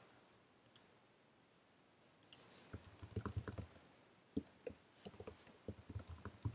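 Faint keystrokes on a computer keyboard: two short runs of typing, the first starting a little under three seconds in and the second about five seconds in, with a few single keystrokes between.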